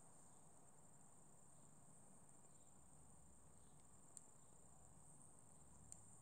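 Near silence: room tone with a faint steady high-pitched hiss and two tiny clicks.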